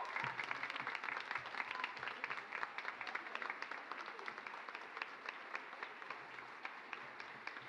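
Audience applauding: a dense patter of many hands clapping that slowly dies down.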